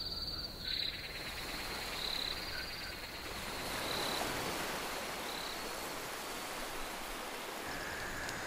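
Faint chorus of insects and frogs: a steady high insect trill with a few short louder chirps, over a soft hiss.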